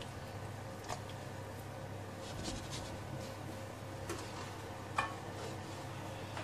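Chicken rendang curry simmering in a stainless steel pot: a few faint pops and ticks, the clearest about five seconds in, over a steady low hum.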